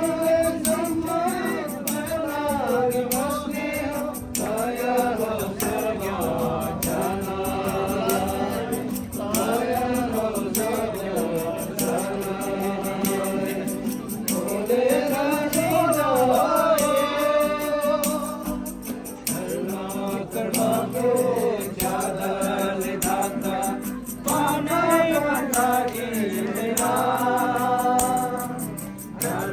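A Christian worship song: a sung melody with musical accompaniment.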